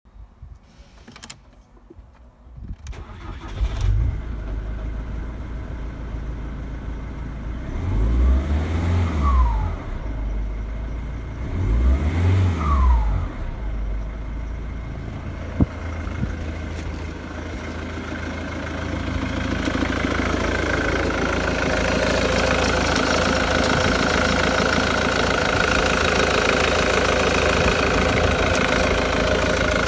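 Ford Mondeo Mk3 2.0 turbo-diesel four-cylinder engine (N7BA) starting after a few clicks, about four seconds in. It settles to an idle, is revved up and back down twice, then idles steadily, heard louder and closer from the engine bay.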